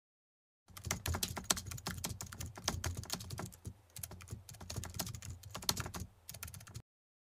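Rapid, irregular clicking and tapping that starts abruptly under a second in and cuts off abruptly near the end.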